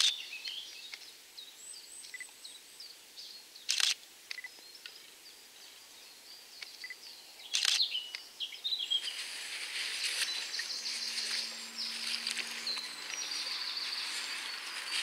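Birds singing outdoors, with three sharp clicks about four seconds apart. About nine seconds in, a steady rushing hiss of water takes over as the carp is lowered back into the lake in a sling.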